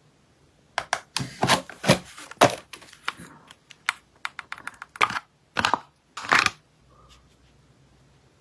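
Packaging being handled and torn open by hand: a run of sharp crackling and crinkling noises for about six seconds, with three louder rips near the end, then stillness.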